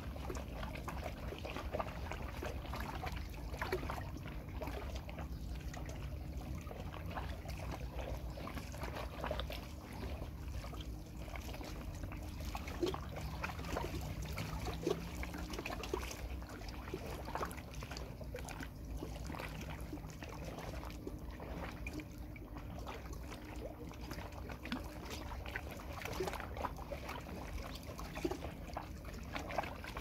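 Lake water lapping and trickling against an old pier, with small irregular splashes over a low steady rumble.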